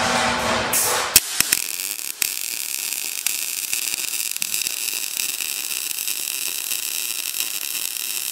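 MIG welding arc on thin sheet steel, fed with 0.030 in. ER70S6 wire from an HTP MIG 200i: a steady, dense crackle as the bead is laid. It sets in after a few sharp clicks about a second in, following about a second of a louder, broader noise.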